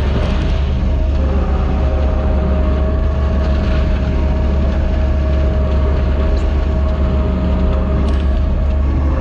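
Heavy-equipment diesel engine running steadily at working throttle: a strong low rumble with a steady high whine over it.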